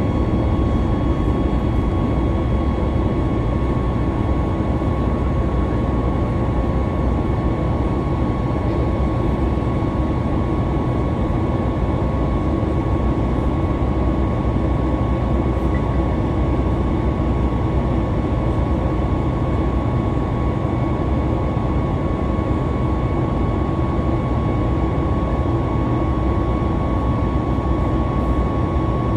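Jet airliner engine noise heard inside the passenger cabin: a steady roar with a thin high whine held at one pitch, neither rising nor falling.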